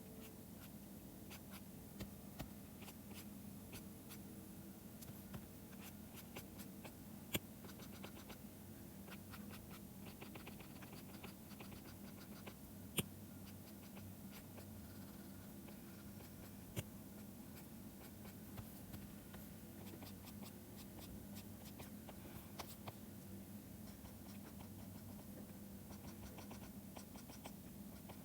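Faint scratching and tapping of a stylus pen drawing on a tablet, with a few sharper taps.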